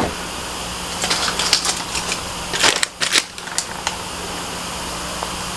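Cardboard and plastic packaging of a boxed ornament being handled and opened: bursts of rustling and sharp clicks, mostly between about one and four seconds in, over a steady low electrical hum.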